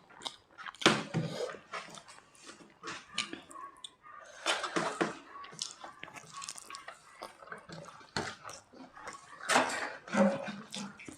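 People eating curry, dal and pakora: wet chewing and lip smacking in quick, irregular clicks, with louder bursts about a second in, around four and a half seconds and near ten seconds.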